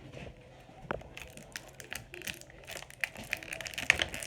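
Plastic toy packaging crinkling and crackling as an action figure is worked out of its box: a single click about a second in, then a run of irregular snaps that grows denser and louder near the end.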